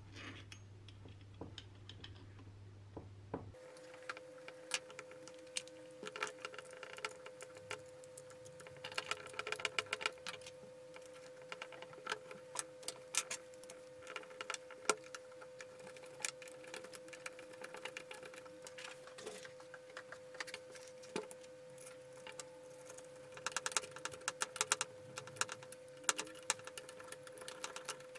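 Small metal clicks and taps of a screwdriver turning screws in an aluminium drill gear housing, coming in quick clusters, over a faint steady hum.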